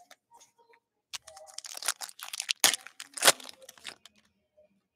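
Foil trading-card pack torn open and its wrapper crinkled by hand, with two sharp crackles about half a second apart in the middle.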